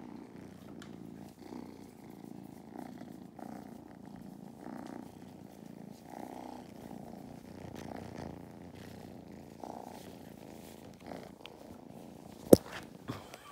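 Two kittens purring loudly at close range, the purr swelling and easing with each breath. A sharp click near the end is the loudest moment.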